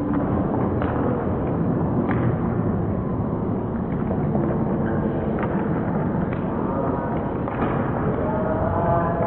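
Indoor field hockey play slowed down: several sharp knocks of sticks on the ball over a steady din of player and crowd voices, all low and drawn out.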